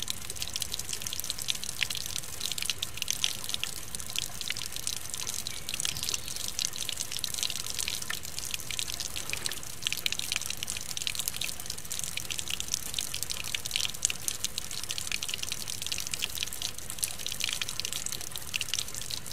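Steady rain: a dense patter of drops, with roof runoff splashing and trickling down a stepped cascade of metal spouts.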